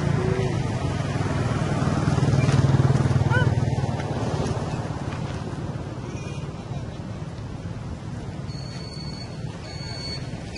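Low engine rumble of a motor vehicle passing nearby, swelling about two to three seconds in and then fading. A brief high squeak comes near the middle, and a thin high tone repeats near the end.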